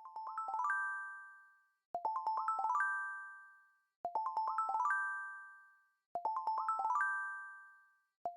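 A short music jingle of chime-like notes: a quick rising run of about six notes that rings on and fades. It repeats about every two seconds.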